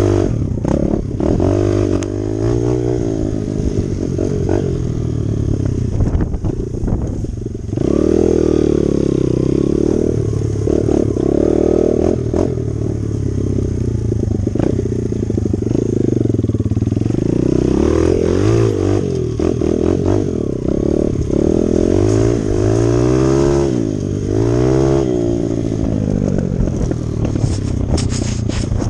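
Dirt bike engine revving as it is ridden, its pitch rising and falling over and over with throttle and gear changes. It eases off briefly about six seconds in, then pulls hard again.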